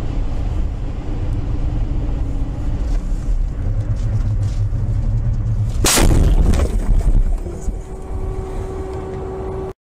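Car driving, heard from inside: a steady low rumble of engine and tyres. About six seconds in comes a loud crash of about a second and a half as the car collides, and a steady tone sounds after it.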